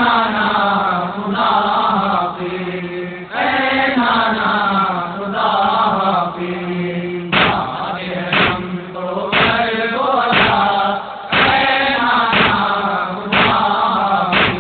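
Voices chanting a noha lament over a steady held drone note. About halfway through, sharp slaps join in about once a second, the chest-beating of matam.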